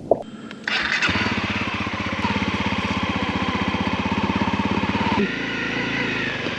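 Honda CRF250L's single-cylinder four-stroke engine starting up: a brief start-up sound catches about a second in, and the engine then runs with an even, fast beat. A little after five seconds the engine sound drops and changes.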